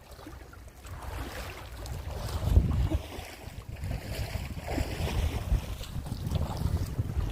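Wind buffeting the microphone in gusts, the strongest about two and a half seconds in, over the rushing and splashing of lake water.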